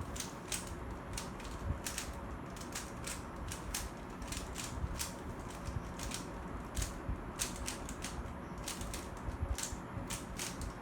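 Plastic Rubik's cube being twisted by hand, its layers clicking as they turn, in irregular quick clicks about one or two a second.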